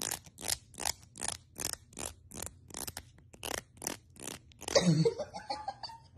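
The teeth of a plastic comb being scraped over and over, about three sharp strokes a second. About five seconds in, a cat gags loudly, set off by the comb's sound.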